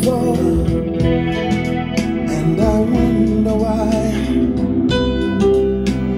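Recorded music, a melody with guitar over a steady bass, played loud through an Altec A7-style horn loudspeaker with a 15-inch woofer and a JBL 2441 2-inch compression driver, powered by a Philips germanium-transistor amplifier.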